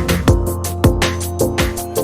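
Background electronic music with a steady drum-and-bass beat, kick drum strikes about twice a second with hi-hats and sustained synth tones.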